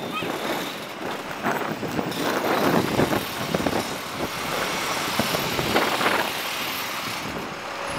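City street traffic: cars, a bus and a truck running and passing at a crosswalk, a steady mix of engine and tyre noise.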